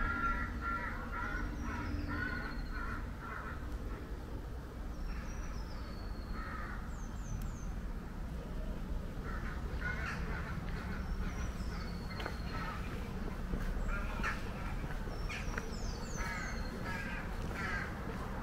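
Crows cawing in runs of several short harsh calls, with a few high, quick falling whistles from another bird, over a steady low background rumble.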